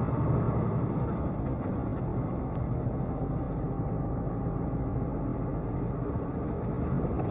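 Steady low rumble of engine and road noise from a vehicle driving, picked up by a dashcam, with no sharp impacts.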